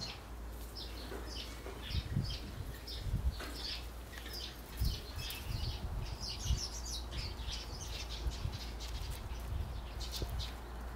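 A small bird chirping over and over in short, high calls, some falling in pitch, over a steady low hum, with a few soft low thumps.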